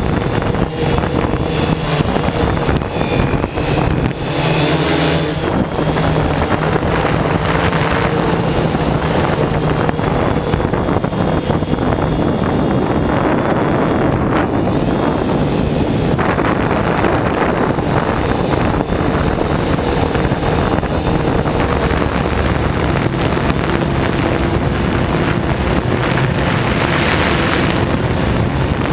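MikroKopter hexacopter's six electric motors and propellers running in flight: a steady buzzing drone that shifts a little in pitch as the craft manoeuvres, with wind noise on the microphone.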